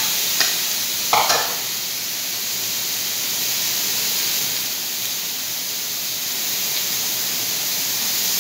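Barbecue chicken sizzling steadily on a hot steel plate, with two light clinks of a spoon in a bowl in the first second or so.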